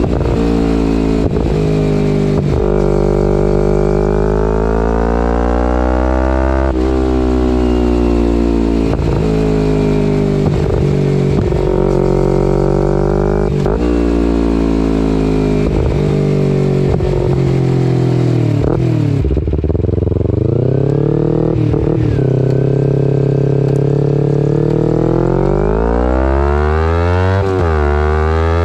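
2011 Kawasaki Ninja 250R's parallel-twin engine through a full Graves race exhaust, running under way with the revs rising and falling, broken by brief interruptions every second or two. It drops to low revs around twenty seconds in, then climbs steadily again near the end.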